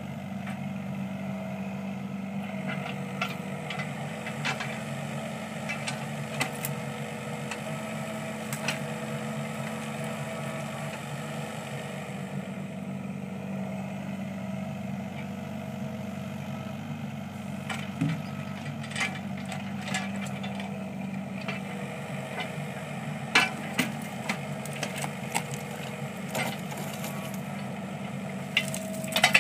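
Yanmar ViO15 mini excavator's diesel engine running steadily, with scattered sharp clanks and knocks as the bucket and hydraulic thumb work.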